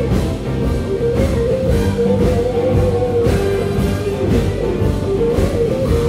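A very large blues ensemble of saxophones, trumpets and electric guitars playing together, with long held notes.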